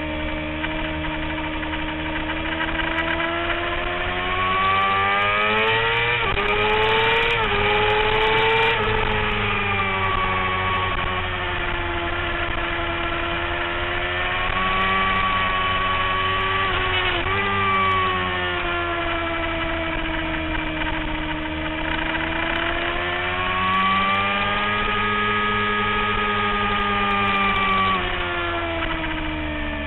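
Sport motorcycle engine running hard on a race track, its pitch rising and falling with the throttle through corners. There are quick gear changes about six to eight seconds in and again about seventeen seconds in. The revs fall away near the end.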